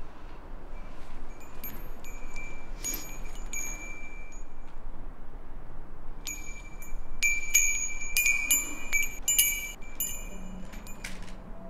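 Wind chime of small brass bells tinkling with a high, thin ring. A few scattered strikes come first, then a busier run of jangling strikes from about six seconds in until near the end.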